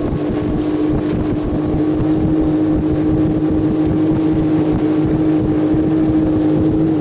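Suzuki four-stroke outboard motor running at speed, driving an inflatable PVC boat at about 41 km/h, a steady even drone with water and wind noise, growing slightly louder.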